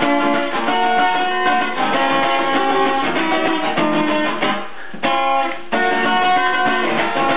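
Music with strummed and plucked guitar, with a brief lull about four and a half seconds in.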